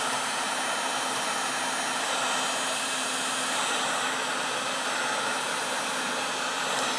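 Wagner heat gun running steadily on its 1000-degree setting: an even rushing hiss of the blower with a steady low hum under it.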